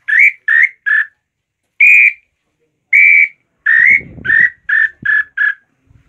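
A wooden inhambu (tinamou) bird call, a 'Garganta de Lambu' model not yet finished, is blown to imitate the bird. It gives a series of clear whistled notes: three short ones, two longer held ones, a rising one, then a run of short, quick notes near the end.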